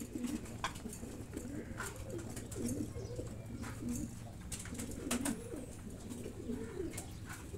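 Several racing pigeons cooing, their low wavering coos repeating and overlapping, with a few sharp clicks scattered among them.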